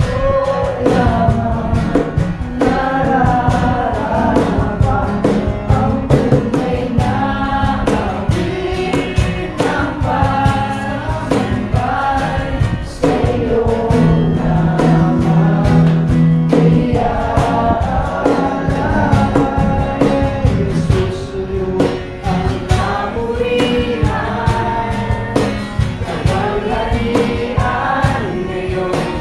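Christian worship song: a group of voices singing a melody over instrumental backing.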